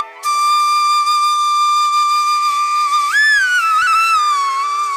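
Background flute music: a slow melody of long held notes, rising briefly about three seconds in and then gliding down, over a faint steady drone.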